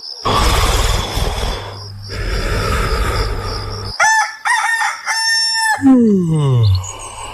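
Two long, noisy snores, followed about four seconds in by a rooster crowing cock-a-doodle-doo in several pitched syllables. Near the end comes a sound that slides steeply down in pitch.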